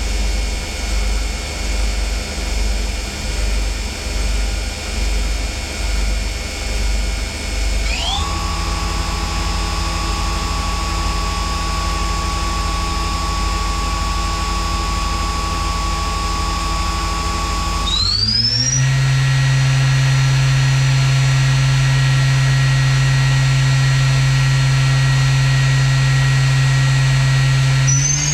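Mazak Variaxis i-800 machining centre's spindle running at a steady speed with a high whine, in a spindle run-up test. It steps up about eight seconds in, and again about eighteen seconds in, each time with a quick rising whine, and runs louder after the second step. It starts to climb once more at the very end.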